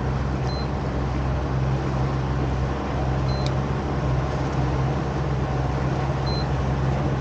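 A 5 m boat's engine running steadily at low harbour speed, a low even hum over a wash of water and wind noise. Three short high beeps sound over it, about half a second in, midway and near the end.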